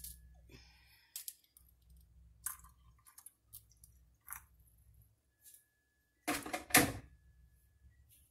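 Kitchenware handled on a counter: scattered light clicks and knocks of a metal pot and a glass coffee mug, with a louder clatter lasting under a second about six seconds in.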